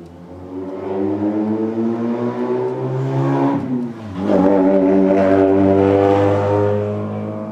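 A vehicle's engine revving hard. Its pitch climbs for about three and a half seconds, drops sharply, then climbs again at its loudest before fading near the end.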